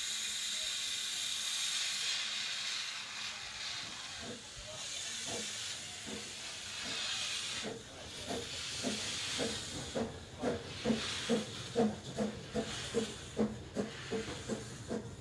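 Ffestiniog Railway Double Fairlie steam locomotive Merddin Emrys moving off: steam hissing steadily at first, then exhaust chuffs that begin about four seconds in and quicken into a regular beat of two to three a second, loudest near the end.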